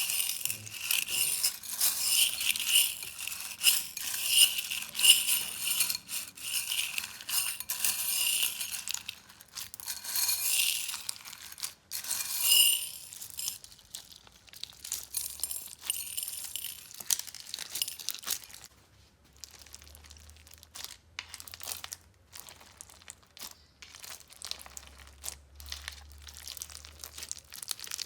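Crunchy slime being squeezed and pressed by hand, giving dense rapid crackling and crunching. After about thirteen seconds it turns quieter and sparser, with scattered clicks and pops.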